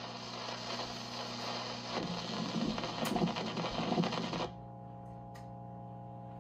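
Wurlitzer 41 countertop jukebox mechanism running after the record ends: a scratchy mechanical clatter that grows louder over the last two seconds or so, then stops abruptly about four and a half seconds in. A steady electrical hum remains.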